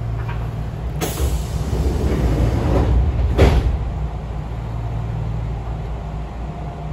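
Steady low hum of a Kintetsu electric train car standing at a platform. About a second in, a sudden hiss of compressed air from the train's pneumatic system swells. It ends in a short sharp burst about three and a half seconds in.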